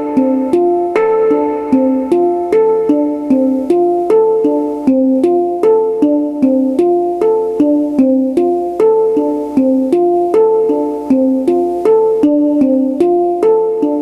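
Hang drum sounds played by hand on an electronic percussion pad: a steady run of struck, ringing notes, about two or three a second, in a repeating melodic pattern.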